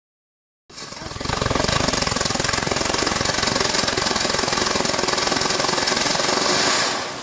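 Starcraft 200-gram firework fountain spraying sparks: a loud, dense hiss with rapid crackling. It starts abruptly about a second in, holds steady and dies down near the end.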